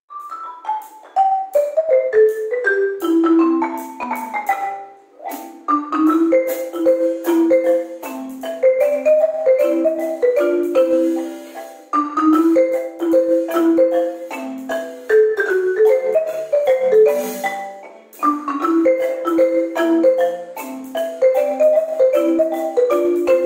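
Marimba played four-handed by two players with yarn mallets, a ragtime duet: a falling run of notes opens it, then after a brief pause a bouncing melody over a lower accompaniment.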